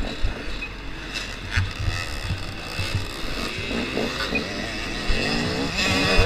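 Two-stroke KTM 250 XC-W dirt bike engine revving up and down as the rider accelerates and shifts, its pitch rising and falling repeatedly and louder in the second half, with a few short thumps.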